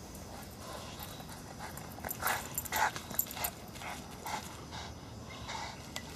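Boston terrier's paws running over grass and dry fallen leaves: a quick series of crackling footfalls, busiest about two to three and a half seconds in, then a few scattered steps as it stops by the tennis ball.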